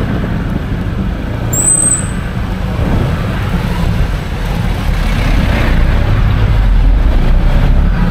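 Road traffic and vehicle running noise with a heavy low rumble, and a short high-pitched squeak about two seconds in.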